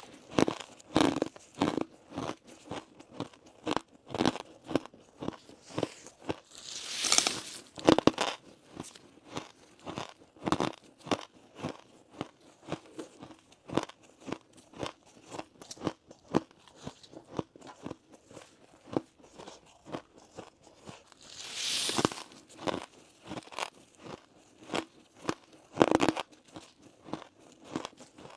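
Crunchy ice being bitten and chewed in the mouth: a steady run of sharp crunches, about one to two a second. A couple of longer hissing noises come about 7 and 22 seconds in.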